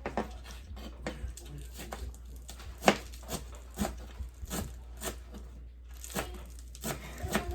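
Scattered knocks and clicks of kitchen utensils and dishes being handled during food prep, with one sharper knock about three seconds in, over a steady low hum.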